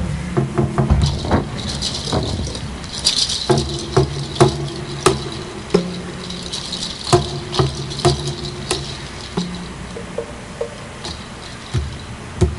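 Percussion music: irregular sharp knocks like wood-block or drum strikes, a rattling shaker in two stretches, and low held tones beneath.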